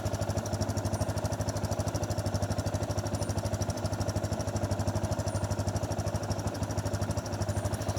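Motorcycle engine idling steadily, with an even beat of about eight pulses a second.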